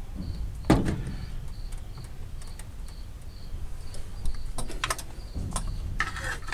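A cricket chirping steadily, about two to three short chirps a second. Over it come a sharp knock about a second in and light metal clicks and a rattle from hand work on the engine bay near the end.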